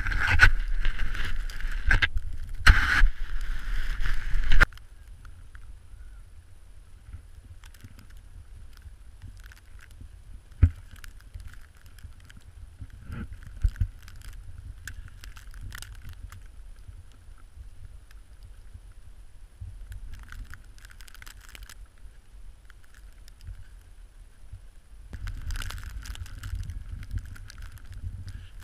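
Welsh corgi digging into packed snow with its paws: loud crunching and rubbing close to the microphone that stops abruptly after a few seconds, then faint, intermittent scraping of snow with a couple of sharp knocks, growing louder again near the end.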